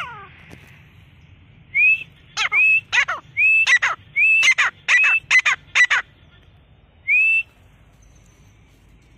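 Grey francolin calling: a run of about ten shrill whistled notes over some four seconds, upslurred notes mixed with sharply falling ones and coming faster toward the end, then one more upslurred note.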